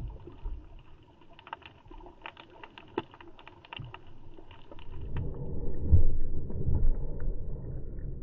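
Swell surging over a shallow coral reef, heard underwater: scattered sharp clicks and crackles at first, then about five seconds in a loud, low rushing rumble as the wave passes over, loudest about six seconds in.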